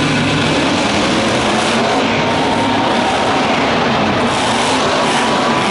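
Monster truck engine, a supercharged V8, running steadily at high power.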